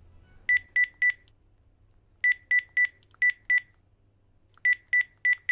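Smartphone keypad beeps as a phone number is tapped in: twelve short beeps on one pitch, in three quick runs of three, five and four.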